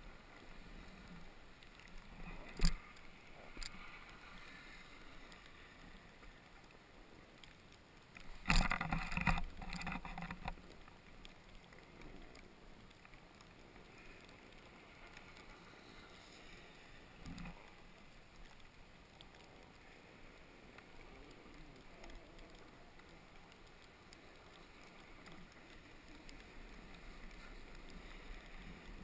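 Snowboard sliding and carving down groomed snow, a steady low swishing. There is a sharp knock between two and three seconds in. A loud rough scraping burst starts about eight and a half seconds in and lasts about two seconds.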